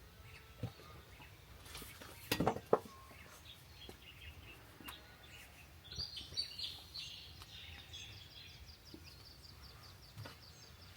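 Small birds chirping over a steady outdoor background, with a fast trill of high ticks through the second half. A quick cluster of sharp knocks comes a little over two seconds in and is the loudest sound.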